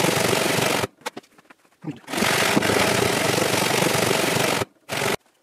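Japanese pull saw resawing a wooden board, the footage sped up so the rapid strokes run together into a continuous rasp. The sawing stops for about a second near the start, with a few light clicks, starts again, and breaks off shortly before the end with one brief last burst.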